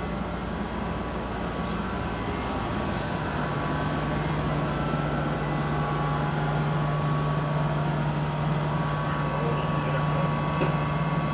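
A ship's engines and machinery droning steadily, heard inside the wheelhouse while under way. A low hum settles into one steady tone and gets slightly louder about three seconds in.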